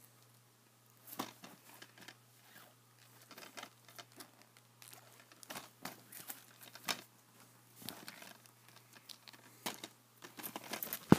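A new DVD case and its plastic wrapping being handled and torn open by hand, crinkling and tearing in irregular short rustles and clicks over a faint steady hum. A sharp, louder crack comes near the end.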